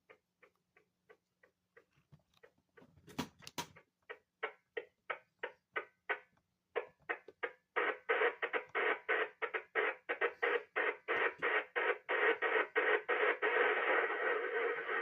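Radio receiver tuned to an odd pulsing signal: short regular ticks about three a second, with a brief crackle about three seconds in. The ticks grow louder and blend into a steady hiss near the end.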